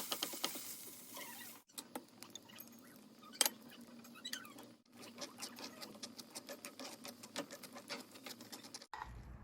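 Food sizzling in a frying pan, cut off abruptly after about a second and a half. Then comes a run of light clicks and taps while the food is handled, with one sharper click about three and a half seconds in.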